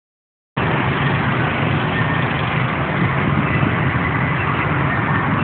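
Small motors of bumper boats running steadily: a low engine hum under a constant noisy wash.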